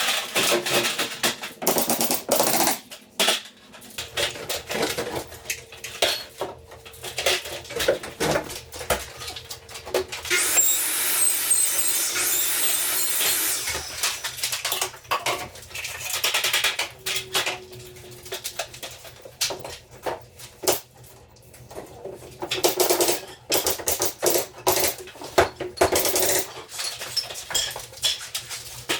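Carpentry work sounds: irregular knocks and clatter of tools and wood, with a steady hissing noise lasting a few seconds near the middle.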